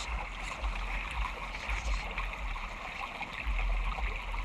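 Creek water running steadily, an even rushing hiss, with an uneven low rumble underneath.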